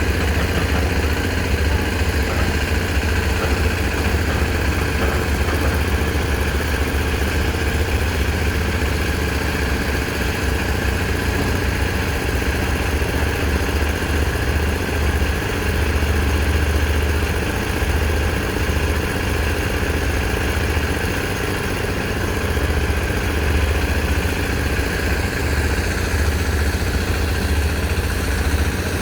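Heavy construction machine's engine running steadily at idle, with a deep uneven throb.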